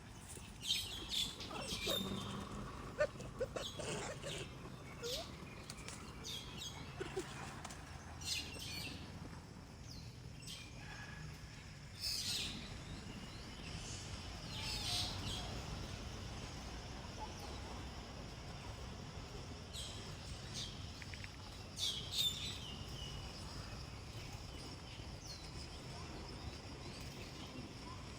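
Short, high-pitched animal chirps and squeaks, scattered irregularly, over a steady low outdoor background.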